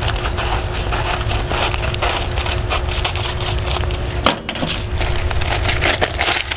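Scissors cutting through folded layers of parchment paper: a dense, crackly run of snips and paper crunching, with a short break about four and a half seconds in.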